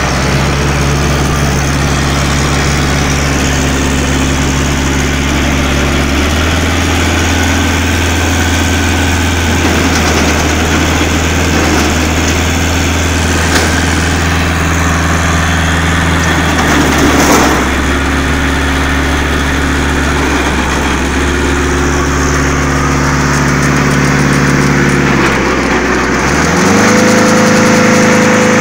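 Wood chipper's engine running steadily, its note shifting now and then, with a brief louder burst of noise about midway; near the end it speeds up with a rising pitch.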